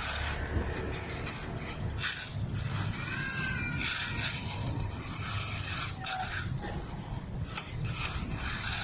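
Irregular scraping and rubbing strokes over a steady noisy background, with a few short squeaky glides about three to four seconds in.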